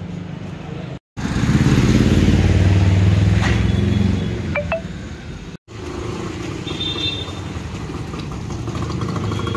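A road vehicle's engine running steadily on the move, with a low hum. It comes in three short clips cut together, with the sound dropping out briefly twice, and the middle clip is the loudest.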